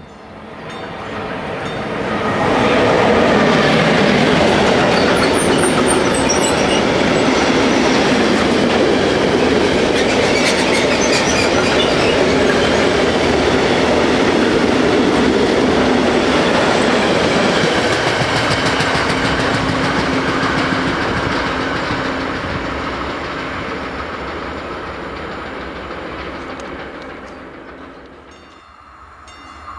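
A long freight train of covered wagons passing close by: a steady rolling rumble with wheels clattering over the rail joints, building up over the first few seconds. There are brief high-pitched squeals about five seconds in and again near eleven seconds, and the sound then fades away as the last wagons recede.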